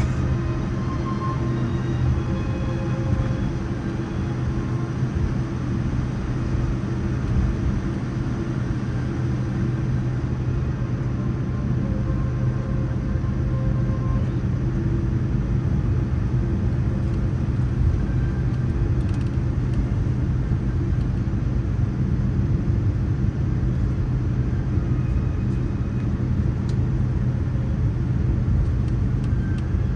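Steady low rumble and hum inside the cabin of a Boeing 787-9 airliner on the ground just after landing, its engines running at low power.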